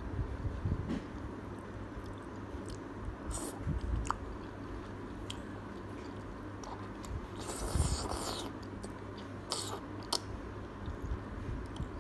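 A person eating thick udon noodles in tonkotsu pork broth: wet chewing and mouth clicks, with noodle slurps, the longest running for about a second between seven and eight seconds in.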